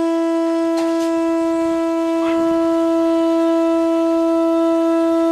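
Conch shell blown as a horn: one long, unbroken note held at a steady pitch, rich in overtones.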